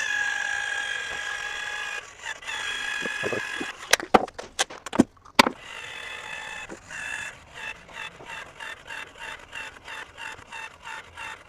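Caulk gun squeaking as a bead of caulk is laid along the window sill. There are a few sharp clicks about four to five seconds in, and near the end the squeak pulses about three times a second.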